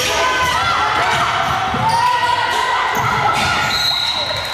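Basketball game play in a gym: a basketball bouncing on a hardwood court with repeated dull thuds, and many short, gliding sneaker squeaks on the floor. A brief high steady tone sounds near the end.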